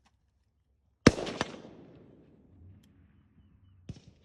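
A rifle shot about a second in, followed a split second later by a second sharp crack and a long echo rolling away. Two faint clicks follow near the end.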